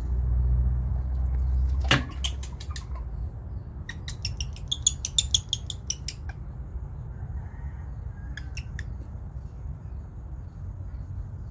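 A rapid run of high-pitched animal chirps lasting about two seconds, starting some four seconds in, with a couple more short chirps later. A sharp click and a few quicker clicks come just before, and a low rumble fills the first two seconds.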